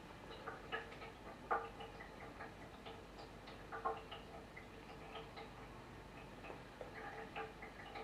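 Irregular light tapping and clicking, several taps a second with uneven gaps, from great tits pecking at the branches of a small tree.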